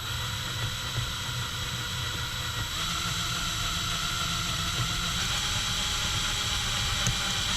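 Electric drill with a 3/32-inch bit running steadily, boring into the spring pin of a stock paddle-shifter housing to unseat it; the whine slowly grows louder.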